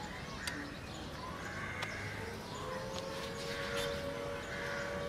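Film soundtrack ambience of birds chirping with small clicks and taps. About halfway through, a few held musical tones slide in and sustain.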